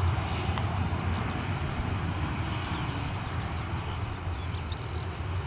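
Boeing 737-800's CFM56 jet engines running steadily at low taxi thrust as the airliner rolls slowly along the runway.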